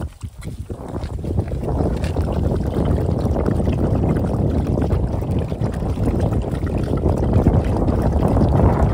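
Steady low rumble of wind buffeting the microphone, over several dogs lapping milk from a plastic tray with light, irregular clicks.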